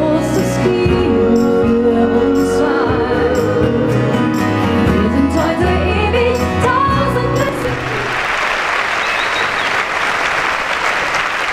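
Two women singing a pop song live over instrumental accompaniment; the song ends after about eight seconds and a large audience breaks into applause.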